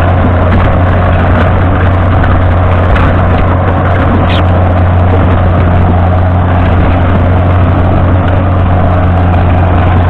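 John Deere 7710's 8.1-litre six-cylinder diesel engine running loud and steady under heavy load while pulling a deep plough through the soil, with a constant rushing noise over its low drone.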